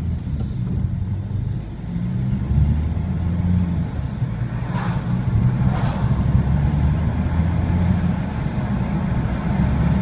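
Vauxhall Vectra CDTi turbo-diesel under way, heard from inside the cabin: a low engine drone with a faint turbo whistle above it. The car is remapped and has a Pipercross air filter and air box mod. The engine grows louder about two seconds in.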